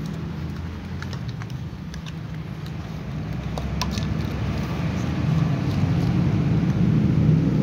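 Cats eating dry kibble from plastic bowls: scattered sharp crunches and clicks over a steady low rumble.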